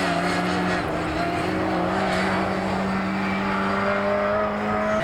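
Classic racing car engine running hard at high revs, its pitch holding steady and climbing slowly, with a small step in pitch about a second in.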